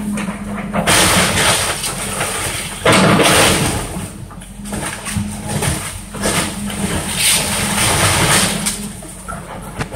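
Tracked excavator's diesel engine running while it tears into a wooden house, with repeated bursts of wood cracking and debris crashing down, the loudest about three seconds in.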